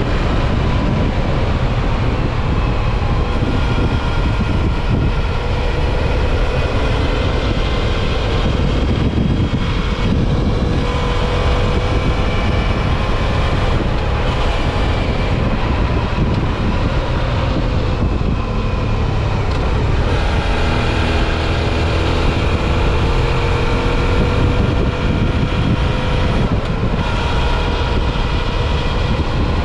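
Suzuki V-Strom 650 XT motorcycle's V-twin engine running under way, its pitch slowly rising and falling with road speed, beneath a loud, steady rush of wind and road noise.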